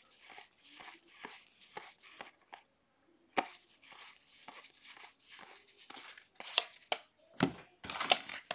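1981 Topps football cards being flicked through one at a time, a short card-on-card click about three times a second, with a brief pause a few seconds in. Near the end a soft thump as the stack is put down, then the crinkle of wax-paper pack wrappers being handled.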